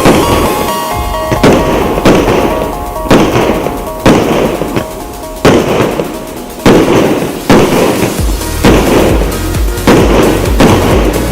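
A 150-shot, 1.2-inch firework cake firing a steady run of shots, a sharp bang about once a second, with background music playing under it.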